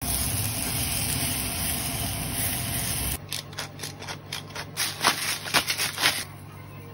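Pork steak on a hot cast-iron sizzling plate sizzling loudly and steadily as gravy is poured over it; the sizzle cuts off after about three seconds. Then comes a run of irregular sharp clicks and taps, loudest between about five and six seconds in, while raw pork in a glass bowl is seasoned with salt and pepper.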